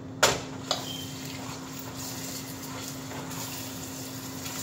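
Two sharp knocks of a cooking utensil against a stainless steel pot, the first the louder, then the soft scraping of grated carrots being stirred in hot oil over a steady low hum.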